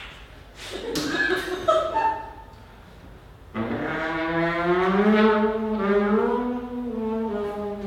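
Trombone slide blown on its own, with no bell section. A few short, higher notes step downward, then about halfway in a loud, sustained low note starts that wavers and bends slightly in pitch.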